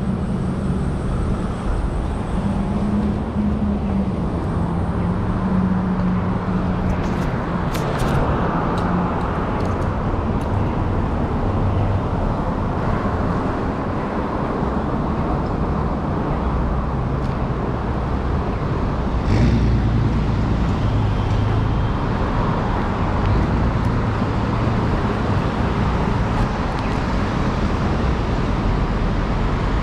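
Steady city street traffic: cars and a bus running past with a hum of engines and tyres, and a brief louder burst about two-thirds of the way through.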